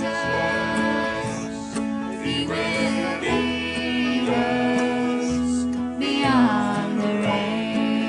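Live country-style band music: a song played on guitar and other plucked strings, with a voice singing over held notes.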